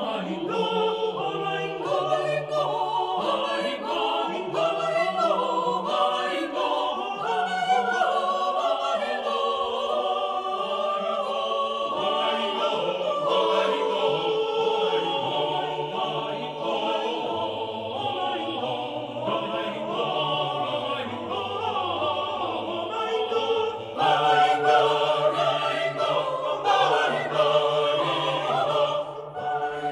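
Background music: a choir singing classical, operatic music, with sustained voices moving through changing chords.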